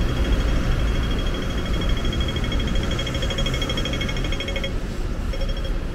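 Hong Kong pedestrian crossing's audible signal beeping in a rapid pulsing stream, which stops a little over four seconds in and gives way to slow single beeps about a second apart, the change from the walk phase to the wait phase. A steady low traffic rumble runs underneath.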